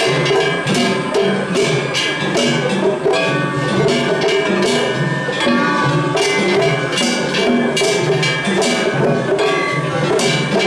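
Kumagaya festival float's o-hayashi band playing: taiko drums beating under fast, repeated strikes of hand-held kane gongs with a bright metallic ringing.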